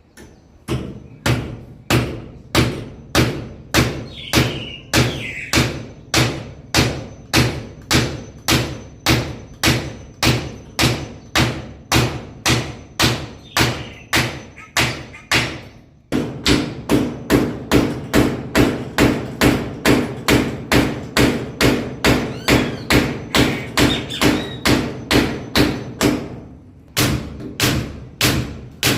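Hammer striking nails in a steady rhythm of loud blows, about two a second. The blows come slightly faster after about halfway, then stop briefly a few seconds before the end and resume.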